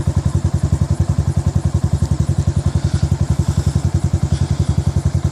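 Yamaha Fazer 150's single-cylinder four-stroke engine idling through an aftermarket Roncar aluminium 'Boca 8' exhaust. It gives a steady, even exhaust beat of about a dozen pulses a second.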